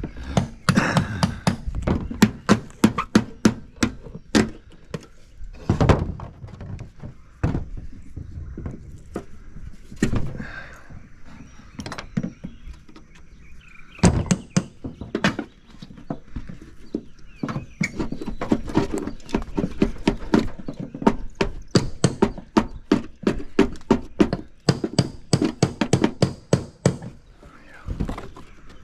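Hand-tool work on the old gutter and trim: a long run of sharp knocks and taps, often several a second, in quick bursts with short pauses, as the staples holding the gutter are worked loose.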